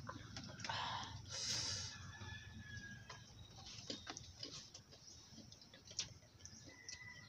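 A person eating egg cracklets: a breathy sniff or exhale about a second and a half in, then scattered soft clicks of chewing and mouth sounds. The nose is running from hot Bisaya chili.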